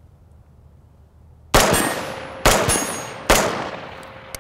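Three rifle shots from a Smith & Wesson Performance Center AR-15, fired off-hand about a second apart, each followed by a long echo that dies away across the open range.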